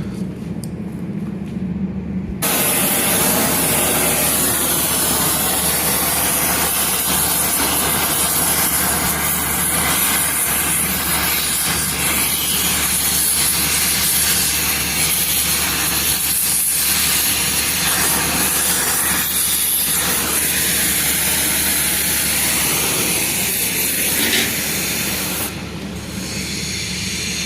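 Gas torch flame hissing steadily while preheating a broken steel differential locker part before welding. The hiss starts suddenly about two seconds in and eases near the end, over a steady low hum.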